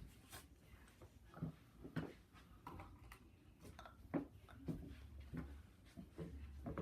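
Faint, scattered clicks and light knocks in a quiet room, about one every half second to second.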